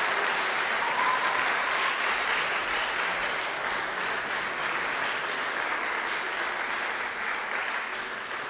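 Audience applauding steadily, the clapping slowly thinning out toward the end.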